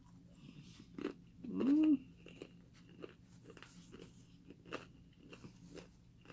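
A person biting and chewing crispy fried chicken wings: irregular crunches, several a second, with a short 'mm' hum that rises and falls about a second and a half in.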